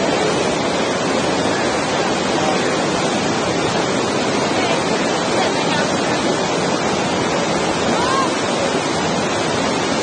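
Whitewater rapids rushing steadily: a loud, even wash of churning water.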